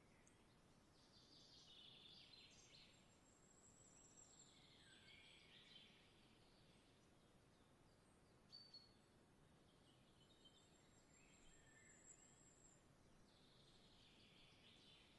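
Faint songbird chirps and twittering in several short bouts over a quiet background hiss, with a thin high trill held for a second or two, twice.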